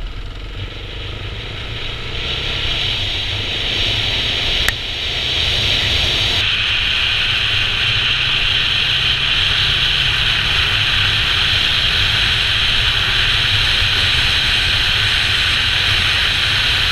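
Dirt bike engine running at riding speed on a gravel track, with strong wind rush on the microphone. A sharp click about four and a half seconds in; the sound steps louder at about six seconds and then holds steady.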